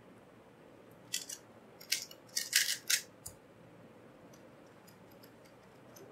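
2x2 speedcube turned at speed: a rapid run of plastic clicks and clacks lasting about two seconds, the moves of one solve of about 2.4 seconds, followed by a single short tap and then faint occasional ticks as the cube is handled.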